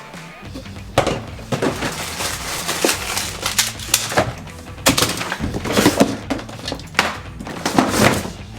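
Repeated knocks, clacks and rustling of plastic bottles and containers of slime ingredients being grabbed and handled, over faint background music.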